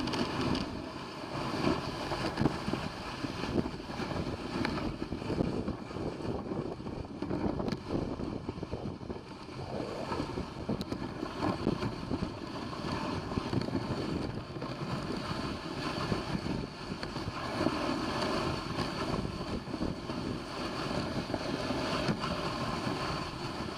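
Dog sled underway: a steady, rough rushing and scraping noise of the sled moving along the trail, with wind buffeting the microphone.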